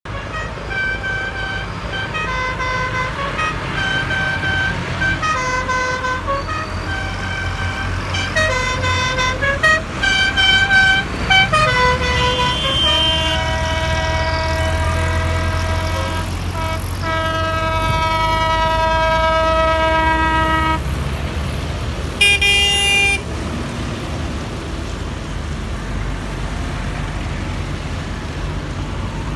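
Farm tractors driving past in a convoy, their engines rumbling, with horns honking: many short toots in the first twelve seconds, then one long held blast of about eight seconds and a brief toot after it.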